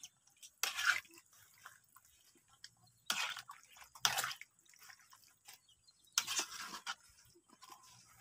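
A ladle stirring chicken and bottle-gourd chunks through coconut-milk curry in a wok: short wet sloshing scrapes, one about a second in, two more around three and four seconds, and a longer one near six seconds.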